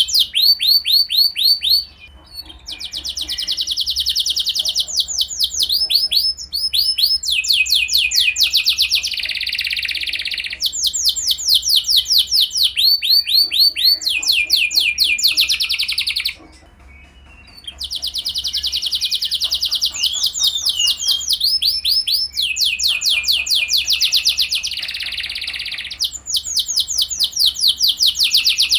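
Domestic canary singing a long, loud song of fast trills, each phrase a quick run of repeated high notes, with short breaks about two seconds in and just past halfway.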